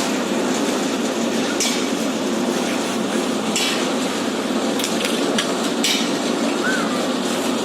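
Several sharp knocks of hand tools striking, hammer-like, over a steady low rumble of work-site noise.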